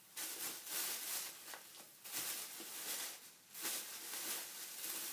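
Plastic shopping bag rustling and crinkling as it is handled, in three long stretches with two short pauses.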